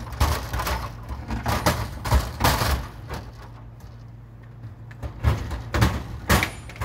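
Metal vending-machine shelf knocking and rattling as its side wheels are set onto the cabinet tracks and the shelf is worked into place, in two bursts of clatter with a pause between.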